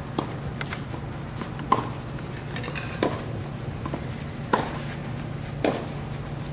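Tennis balls struck with racquets in a feeding drill: five sharp pops about a second and a half apart, with a few fainter ticks between them, over a steady low hum.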